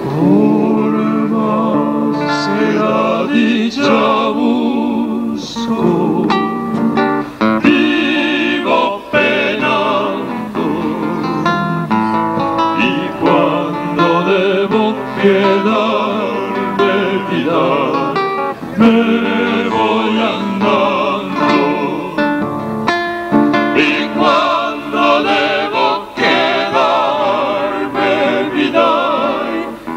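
Male vocal group singing in harmony, several voices together with vibrato, accompanied by a classical acoustic guitar.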